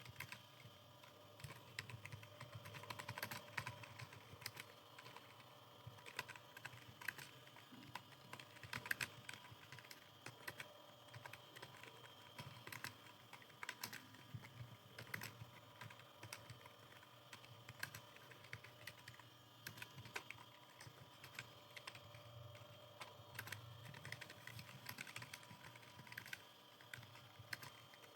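Computer keyboard being typed on continuously, fast irregular key clicks with short pauses, over a faint steady hum.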